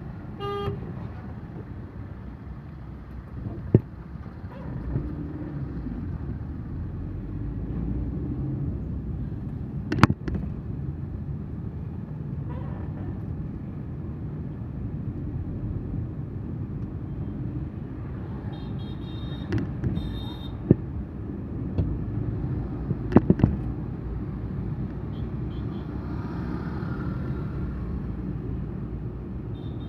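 Steady low road and engine rumble inside a moving car, with a short pitched tone just after the start and a few sharp knocks, the loudest about ten seconds in.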